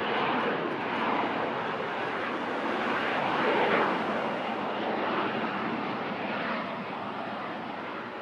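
Jet noise from a Dassault Falcon 2000S business jet's twin turbofan engines: a steady rushing roar that is loudest about three and a half seconds in, then slowly fades.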